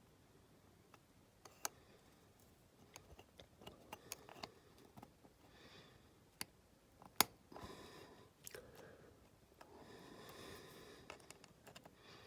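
Faint small clicks and soft scraping of small plastic and die-cast model parts being handled and pressed together, as a toy car's plastic windscreen is worked into its grooves. The clicks come irregularly, with one sharper click past the halfway point.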